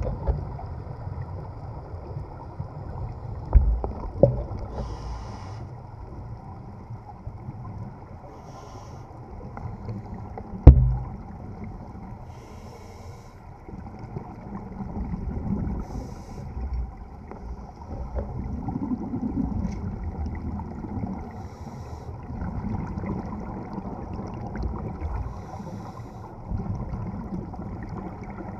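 Muffled underwater ambience heard through a camera's waterproof housing: the low rumble of scuba divers' regulator exhalation bubbles, swelling every few seconds. There are a few sharp knocks, the loudest about ten seconds in.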